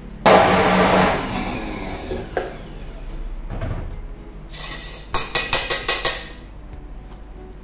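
Ice clattering loudly into a plastic blender jar, dying away over about two seconds. About five seconds in comes a quick run of sharp metal clinks as a spoon knocks around in a stainless steel utensil canister.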